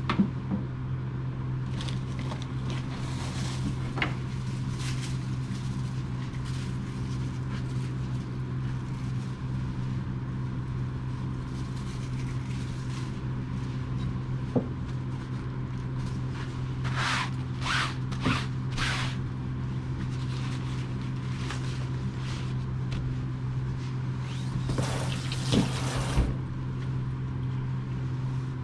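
A steady low hum from a motor or appliance, with a few short rustling sounds of paper towels being handled about two-thirds of the way through and again near the end.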